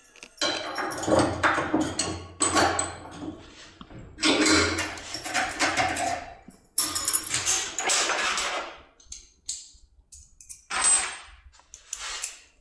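Metal locksmith tools and a lock being handled: clinking, rattling and scraping of metal in a series of bursts, thinning out to a few separate clicks near the end.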